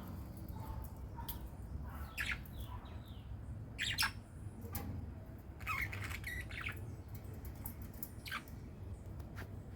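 Birds calling with short squawks and chirps, one every second or so, loudest about four and six seconds in, over a steady low background rumble.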